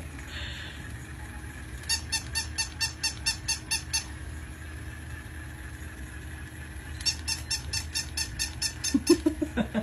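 Battery-powered walking toy cow clicking in quick, even pulses, about five a second, in two runs of a couple of seconds each. A short, low voice-like sound comes near the end.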